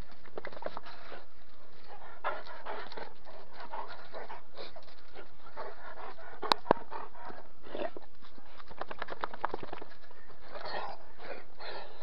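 Šarplaninac sheepdog panting close to the microphone in quick, uneven breaths. Two sharp clicks come in quick succession a little past halfway.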